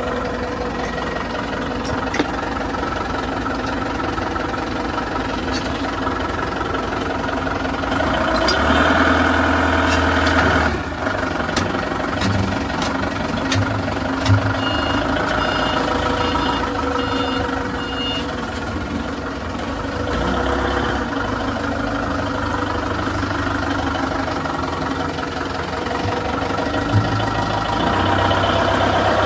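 Heavy diesel machinery engine running steadily, growing louder for a couple of seconds about nine seconds in. A short series of high reversing-alarm beeps sounds about halfway through, and a few sharp metal knocks come now and then.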